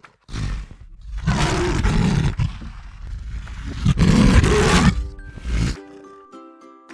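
Lion roaring in several rough, deep bursts. About five seconds in, a short jingle of chiming musical notes follows.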